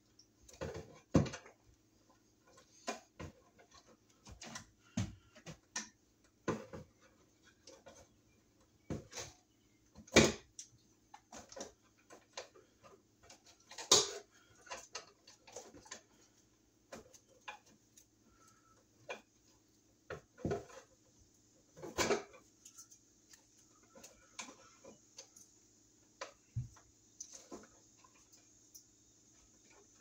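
Irregular clicks and snaps of a hand tool working 12/2 Romex wires at a plastic electrical box, scattered unevenly, with a few louder snaps.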